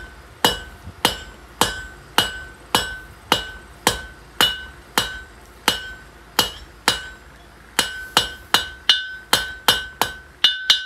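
Hand hammer striking red-hot quarter-inch steel bar on an anvil while forging a nail, each blow with a short metallic ring. The blows come steadily about two a second, then quicken near the end.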